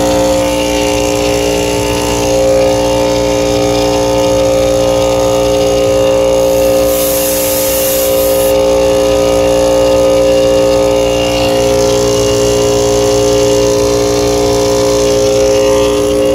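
Rooftop HVAC unit running, its compressor giving a loud, steady hum of several unwavering tones; it sounds terrible, the sign of a compressor in poor condition. A brief hiss comes about seven seconds in.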